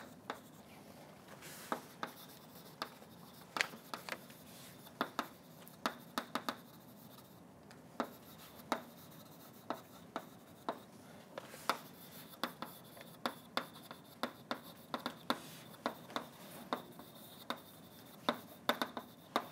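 Chalk writing on a blackboard: a string of short, sharp taps and scratches, irregularly spaced, one to three a second, as letters are formed.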